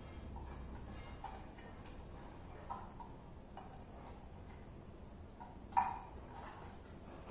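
Scattered light clicks and knocks of a Samsung SF350 monitor's stand base and neck being handled and fitted together, the sharpest click about six seconds in.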